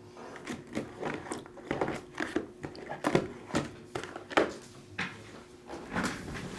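Packaging being handled and torn open: irregular crinkling and crackling, with about a dozen sharper crackles spread through it.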